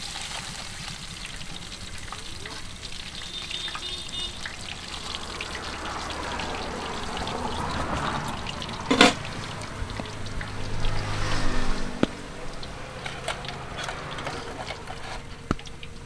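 Oil in a kadai crackling steadily as food fries, with one sharp knock about nine seconds in.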